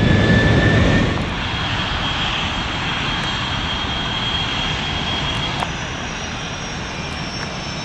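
F/A-18 fighter jets taxiing, their twin jet engines running with a steady rush and a high whine. The whine shifts higher about six seconds in.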